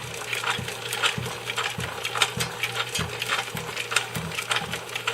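Antique belt-and-gear-driven reciprocating saw running with no blade fitted: a steady electric motor hum with the saw frame clacking at each stroke, about twice a second.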